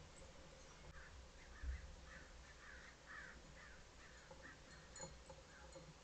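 Faint rapid series of harsh bird calls, about two or three a second, with one low thump a little under two seconds in.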